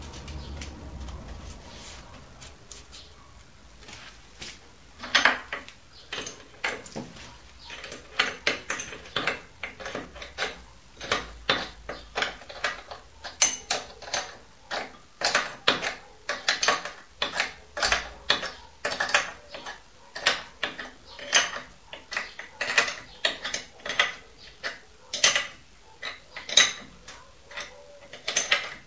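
Repeated sharp metallic clinks and clicks, roughly one or two a second and often in small clusters, from hand work on a mini lathe's metal parts, starting about five seconds in.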